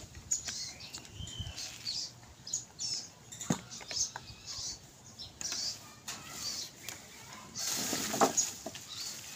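Small birds chirping in the background, with a plastic bag rustling for about a second near the end.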